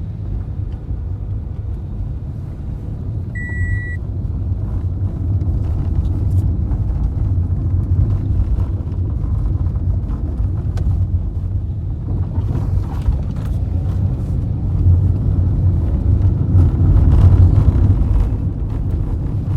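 Car driving along a road: a steady low rumble of engine and tyre noise that grows slowly louder, with one short electronic beep about three and a half seconds in.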